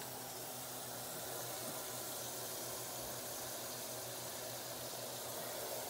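Steady sizzle of food frying in pans on a stovetop: a bread roll toasting in melted butter and bacon in hot grease.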